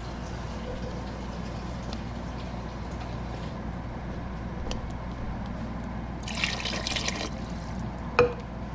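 Water poured from a cup into a pot of cooking vegetables, a brief rushing splash lasting about a second, over a steady low hum. A sharp knock follows near the end.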